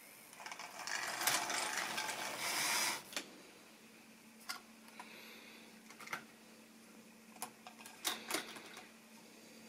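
Rustling handling noise for a couple of seconds, then a faint steady hum with a few sharp clicks.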